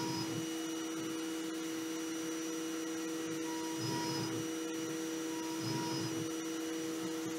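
CNC mill spindle running with a steady whine as a small end mill cuts gear blanks. A low rumble from the cut rises twice, around the middle and near the end.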